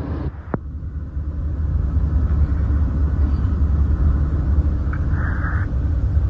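Steady low rumble of a moving vehicle, with a brief higher-pitched sound about five seconds in.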